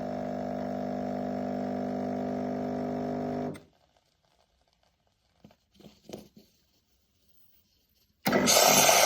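Semi-automatic espresso machine's pump humming steadily, then cutting off suddenly about three and a half seconds in. After a few seconds of near quiet with a few faint clicks, a loud hissing roar with an even pulse starts abruptly near the end.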